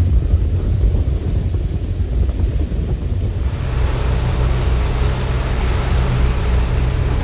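A sailing catamaran's diesel engine running under way, a steady low hum, under wind on the microphone and water rushing past. A little over three seconds in, the wind-and-water hiss gets much louder.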